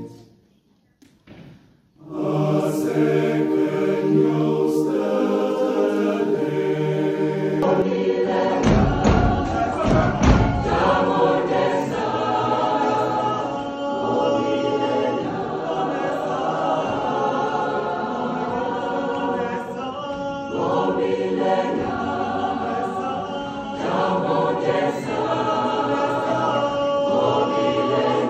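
Choir singing in harmony, starting about two seconds in after a brief silence, with a few low thuds near the middle.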